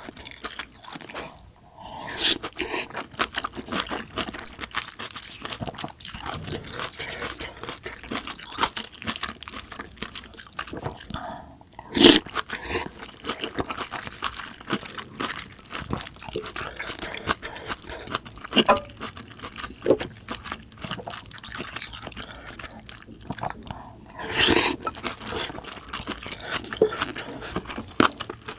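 Chewing and mouth sounds of a person eating spoonfuls of kimchi stew with rice, with dense small wet clicks and crunches throughout. A couple of louder, sharper sounds stand out, about twelve seconds in and again later.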